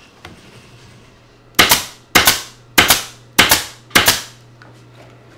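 Pneumatic upholstery stapler firing five times in quick succession, about every 0.6 s, driving 9/16-inch staples into the wooden sofa frame rail to hold the glued frame joint together.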